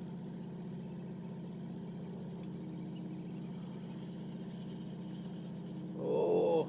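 Fishing boat's engine running steadily with an even low hum. A brief louder sound breaks in about six seconds in.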